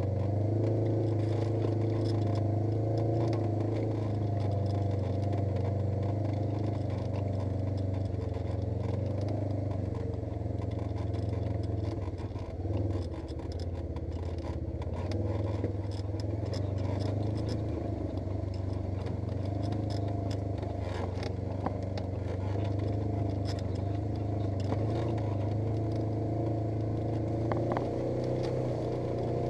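Polaris RZR 900 S side-by-side's parallel-twin engine running at a fairly steady speed, with scattered clicks and rattles from the machine. The engine note dips briefly about twelve seconds in, then comes back.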